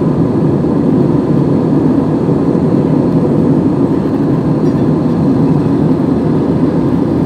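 Steady cabin noise inside an Airbus A320-family jetliner in flight: an even, deep rush of airflow and jet engines, unchanging throughout.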